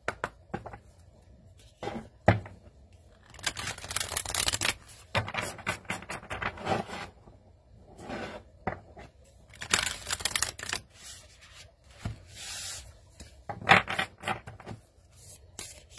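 A deck of large oracle cards being shuffled by hand: the deck split and the halves riffled and pushed together, giving quick clicks and flutters of card stock in several bursts. The longest bursts come about four, ten and fourteen seconds in.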